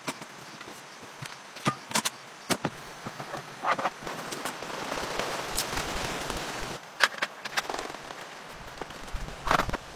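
Camping gear being handled and set up: a scattered series of sharp clicks and knocks from a folding metal table frame and hard plastic storage cases, with a few seconds of steady hiss in the middle.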